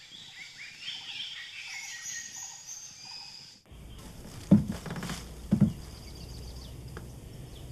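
Small birds chirping and twittering for about three and a half seconds. Then the sound changes sharply to a low steady hum, with two dull knocks about a second apart as a wooden cabinet is rummaged.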